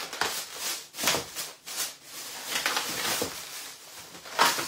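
Plastic produce bags and foam trays of grapes crinkling and rustling as they are handled, in a run of short irregular rustles with a louder one near the end.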